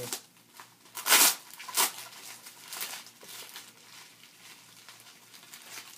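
Packaging crinkling as the next item is unwrapped from the box, with two short louder bursts a little over a second in, then softer rustling.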